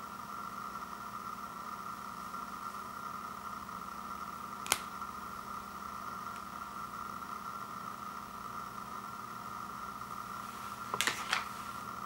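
A dark chocolate bar with marzipan filling snapping in half with one sharp crack, then a piece breaking again with a quick few cracks near the end, over a steady faint background hum.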